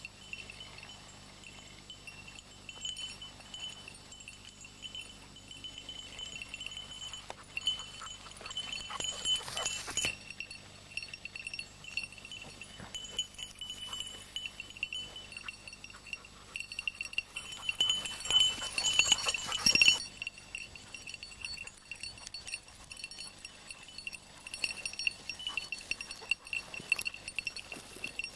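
A small bell on a hunting dog's collar jingling on and off as the dog works through the scrub. Twice there is a louder stretch of rustling, about a third of the way in and again after about two thirds.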